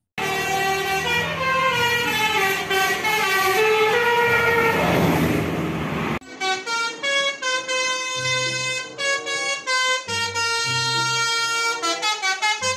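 Vehicle musical horns playing tunes. For the first six seconds the notes slide, with a rush of a passing vehicle around five seconds in. After a cut, a coach's multi-tone "telolet" air horn plays stepped notes and ends in a quick run of short toots.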